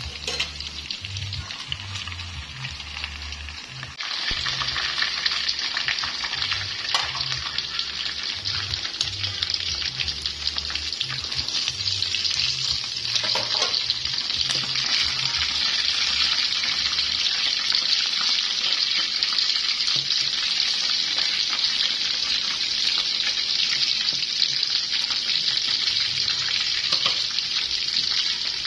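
Pork ribs frying in hot oil in a wok, a steady sizzle that gets louder about four seconds in.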